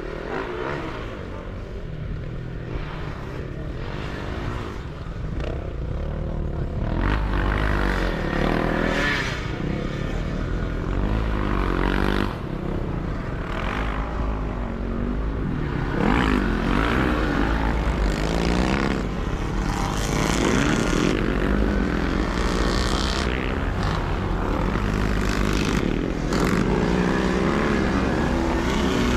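Motocross sidecar motorcycle engines revving hard, several at once. Their pitch keeps rising and falling as they race, and the sound grows louder about seven seconds in.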